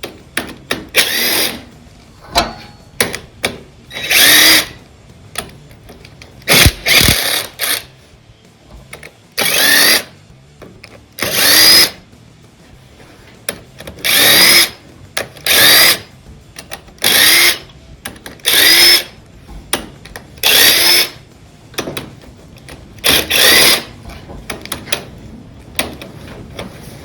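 A handheld power tool running in short bursts, each one spinning up with a rising whine and repeated every second or two, backing out the already-loosened cylinder head bolts on a John Deere 2630 tractor engine.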